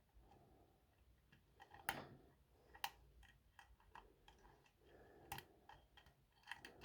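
Faint, scattered metal ticks and clicks of a hook pick and tension tool working the pins inside a pin-tumbler lock cylinder, with a few sharper clicks standing out.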